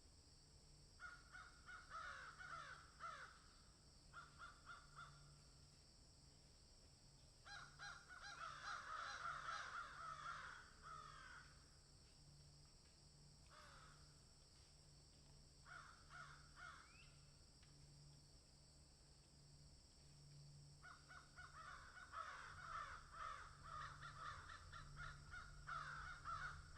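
Birds calling in a series of bursts of rapid repeated calls, the longest lasting several seconds, with quieter gaps between.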